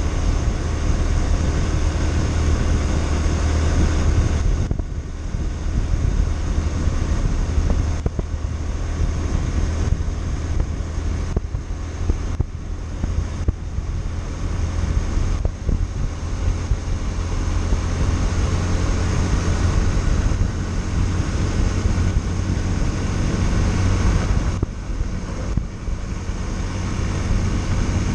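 Yamaha Factor 150 motorcycle's single-cylinder engine running steadily on the road, with wind rushing over the microphone. The engine briefly eases off a few times.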